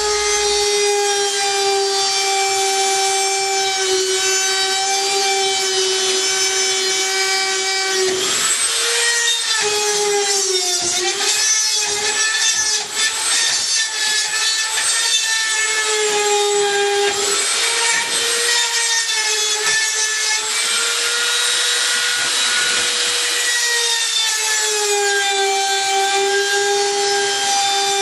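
A Dremel-type rotary tool running at high speed and cutting into the plastic hub of a dryer blower wheel stuck on the motor shaft. It makes a steady whine whose pitch sags and recovers several times as the bit bites into the plastic.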